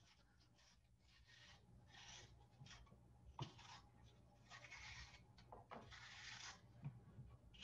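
A small kitchen knife peeling and slicing an apple held in the hand, heard as a series of faint rasping strokes with a few light clicks.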